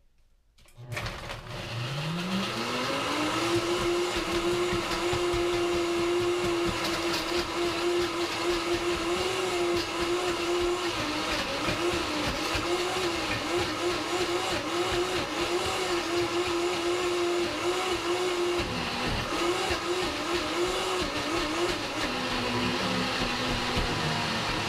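Vitamix S55 personal blender motor starting about a second in and spinning up to its highest speed, then running steadily while crushing frozen almond-milk ice cubes and orange into sorbet. In the second half its pitch dips briefly again and again as the frozen load drags on the blades, and near the end it settles at a lower pitch.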